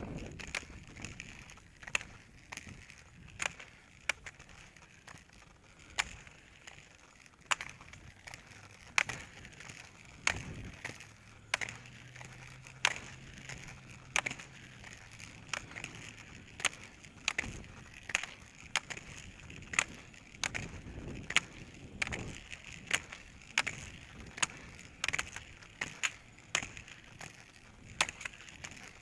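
Roller-ski pole tips striking the asphalt path in a steady skiing rhythm: a sharp click about once a second, coming a little faster near the end, over a faint rolling hiss.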